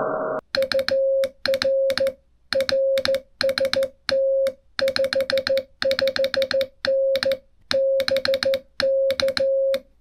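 Morse code sent by hand on a straight key: a single steady tone of a little over 500 Hz keyed on and off in dots and dashes, each element starting and ending with a sharp click. The receiver's band hiss cuts out about half a second in, as sending begins.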